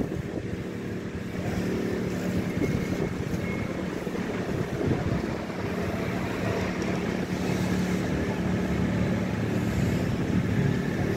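Street traffic: a steady low engine hum with a held drone.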